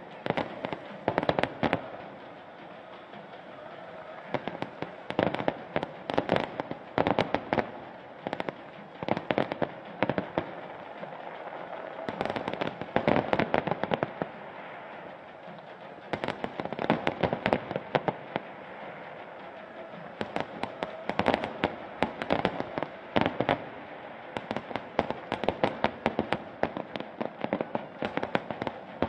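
Fireworks display: volleys of rapid bangs and crackles come in clusters every few seconds over a steady background noise.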